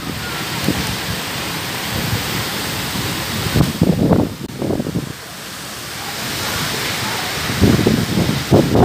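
Heavy rain in strong gusting wind: a steady loud hiss, with gusts buffeting the microphone in short loud bursts midway and near the end.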